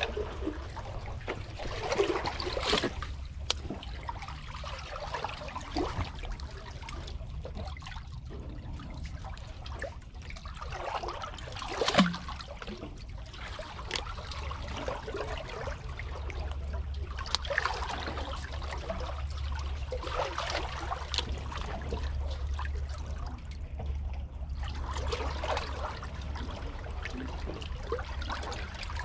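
Seawater sloshing and trickling in the gaps between concrete tetrapods, rising and falling in irregular surges. Thin clicks are scattered through it, and a sharp knock comes about twelve seconds in.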